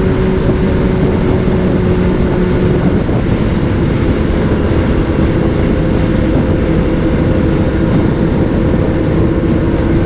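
Kawasaki Z900's inline-four engine running at steady cruising revs under heavy wind rush on the microphone, the engine being run in during break-in. The engine note shifts slightly about three seconds in.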